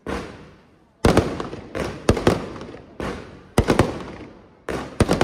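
Aerial firework shells bursting overhead in a rapid series of sharp bangs, one or two a second, each trailing off in a long echo.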